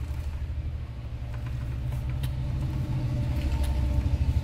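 A TVS Apache RTR 180 motorcycle's single-cylinder engine running with a steady low rumble that grows slightly louder, with a few light clicks over it.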